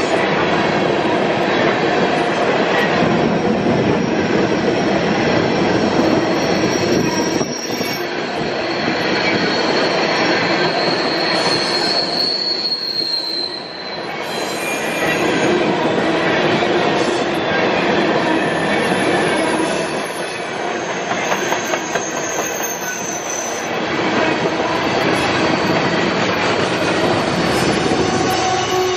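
Empty coal hopper cars of a freight train rolling past on curved track, steel wheels rumbling and clicking on the rails, with thin high squeals from the wheels on the curve that come and go. Near the end a mid-train diesel locomotive passes, adding a steady engine tone.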